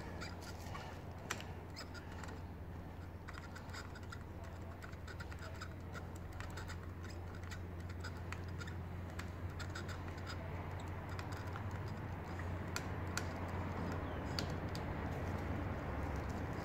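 Scattered small clicks and scratches of a screwdriver working at the brake light switch and its wiring under a motorcycle's front brake lever, over a steady low hum.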